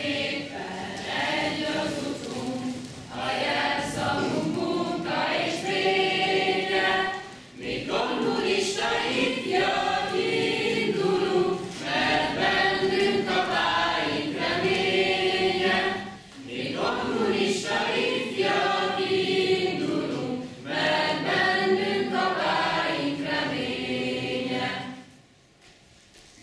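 Choir singing a song in long phrases, with short breaks between them; the singing stops about a second before the end.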